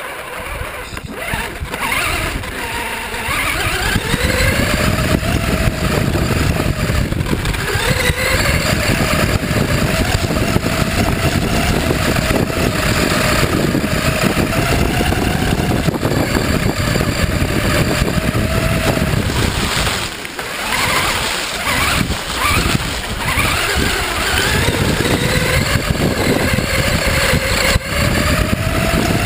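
FTX Enrage 1/10 RC buggy's motor and drivetrain running under throttle, heard from a camera mounted on the car: a whine that rises in pitch as it accelerates and then holds, over rough rumble from the tyres on grass. About two-thirds of the way through the throttle eases off and the pitch drops, then it winds back up again.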